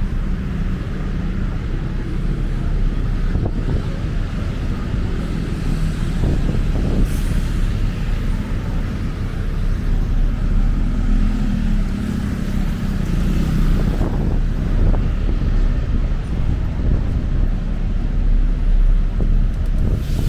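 Busy city street traffic: vehicle engines running and passing, a steady low rumble with some engine tones rising and falling.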